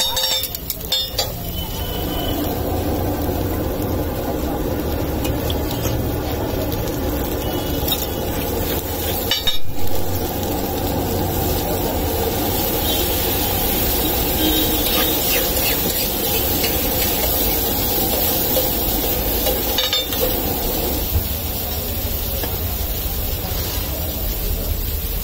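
A metal spatula stirs and scrapes an egg-yolk mixture on a hot flat iron griddle. Water is poured onto the hot mixture, and it bubbles and sizzles. There is a brief louder burst about ten seconds in.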